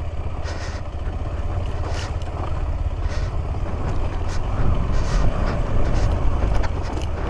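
KTM 390 Adventure's single-cylinder engine running on a rough off-road climb, with scattered knocks and clatter over the rocky ground.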